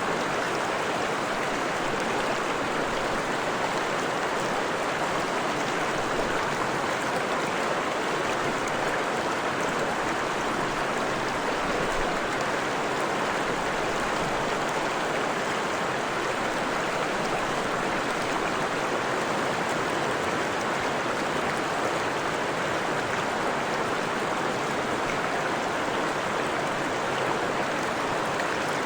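Forest stream of fresh water rushing and splashing over rocks in a steady, even rush.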